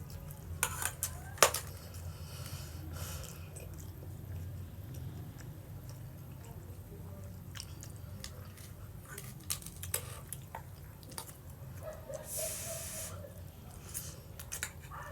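A person eating spaghetti: quiet chewing and wet mouth sounds with scattered small clicks, the sharpest about a second and a half in, and a short hiss about twelve seconds in, over a steady low hum.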